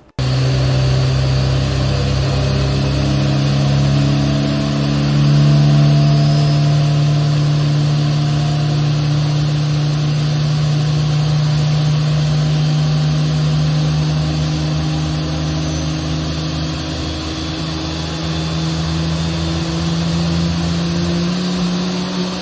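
A CFM LEAP-1A turbofan engine being started manually, its malfunctioning starter valve opened by hand with a 3/8-inch drive extension so APU air can turn the starter. It makes a loud, steady hum whose tones rise slowly in pitch as the engine spools up.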